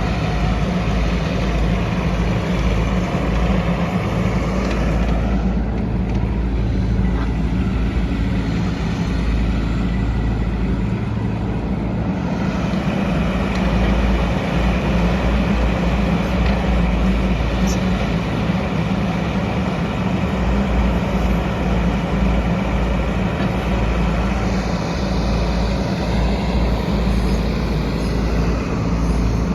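Diesel engine of a 2021 Doosan DX10Z micro excavator running steadily, a continuous low engine hum.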